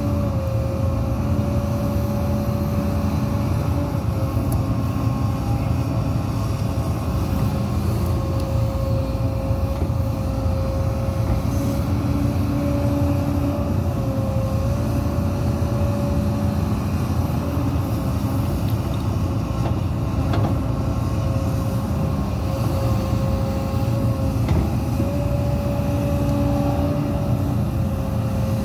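Hidromek 230LC H4 excavator working: its diesel engine runs steadily under load with a constant high whine, and lower tones come and go every few seconds as the boom and bucket move.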